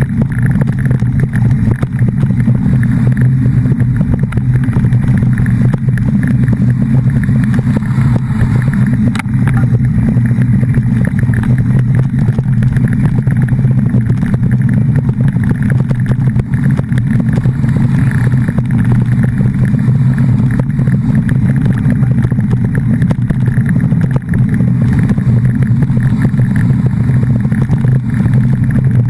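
A steady, loud, low engine drone running at an even speed throughout, with no revving or breaks.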